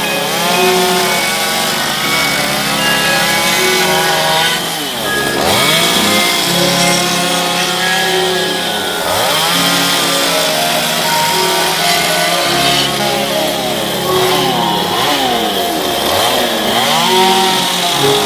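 Stihl chainsaw cutting western red cedar. The engine pitch dips under load and recovers again and again as the chain bites into the wood and pulls out.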